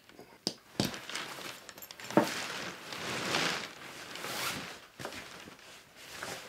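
Canvas backpack being opened by hand: a few sharp clicks as its flap fastenings are undone, then rustling and swishing fabric as a sleeping-bag stuff sack is pulled out of it.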